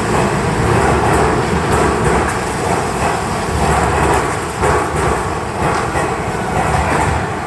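Electric commuter train running through an underground station platform: a loud, steady rumble of wheels and motors with scattered clicks of wheels over the rails.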